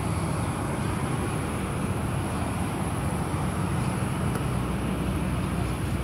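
Steady low rumble of road traffic, even and unbroken.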